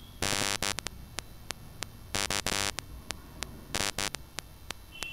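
Ground spice powders going into masala paste frying in an aluminium kadai: three short, harsh rattling bursts over a faint, even ticking.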